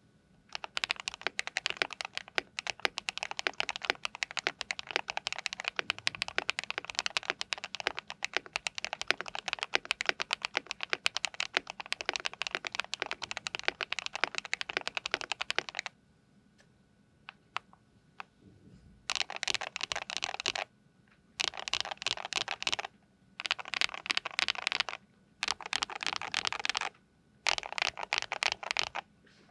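A KBD67 Lite R2 65% mechanical keyboard is typed on steadily for about fifteen seconds. It has a PC plate, foam-dampened case, lubed KTT Strawberry linear switches and ABS doubleshot keycaps. After a short pause come five bursts of rapid key presses, each about a second and a half long, as the board is flexed.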